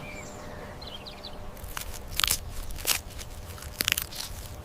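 Turtle biting and crunching food in a few sharp, crackly bites, grouped about 2, 3 and 4 seconds in. Faint bird chirps sound early on.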